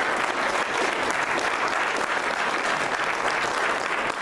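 Audience and the people on stage applauding, a steady patter of many hands clapping.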